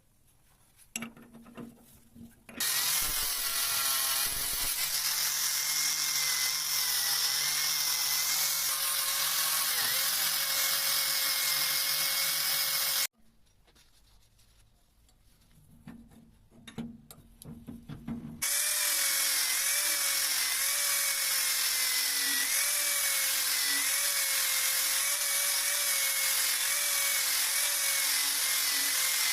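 Electric power tool running under load, its whine wavering and dipping as it is pressed into the work, working rust off a steel axe head. It runs in two long stretches; between them, for a few seconds, only quiet clicks and knocks of handling are heard.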